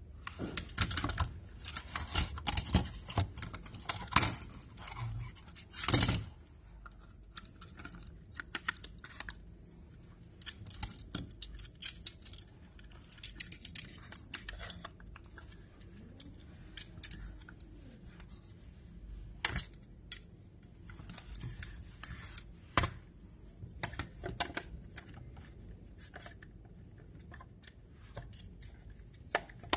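Sublimation-printed acrylic panels being handled and slotted together by hand: hard plastic clicks, taps and clacks. They come thick and fast over the first six seconds, with the loudest knock about six seconds in, then turn to scattered clicks.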